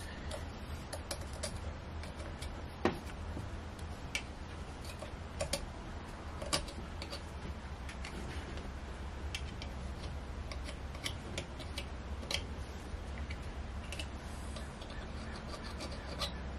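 Scattered, irregular light clicks and taps of hand tools working at a marine diesel's raw-water pump, with the loudest click about three seconds in, over a faint steady low hum.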